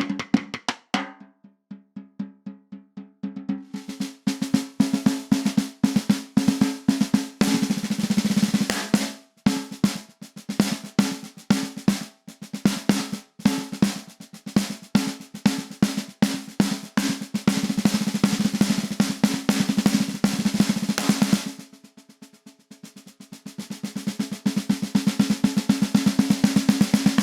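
Peace SD134 14"x4" anodized-aluminium snare drum played solo, mixing single strokes and rolls, each stroke ringing with a steady pitched tone. It plays softly near the start, then loud, and after a short lull near the end a fast roll builds from quiet to loud.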